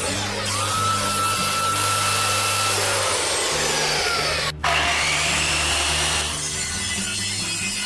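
Handheld power tool running on wood, its motor pitch rising and falling a little. The sound drops out briefly about halfway through.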